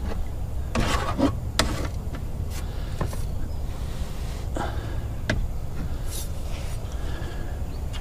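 Rubbing and rustling with a few sharp knocks as a person clambers from the bank onto a small plastic fishing boat, over a steady low rumble.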